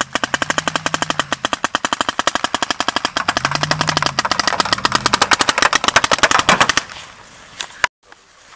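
Paintball markers firing in rapid succession, about ten shots a second for nearly seven seconds, then stopping abruptly.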